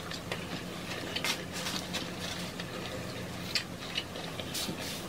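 Close-miked chewing of tacos and burritos: scattered small clicks and smacks of two people's mouths over a faint steady hum.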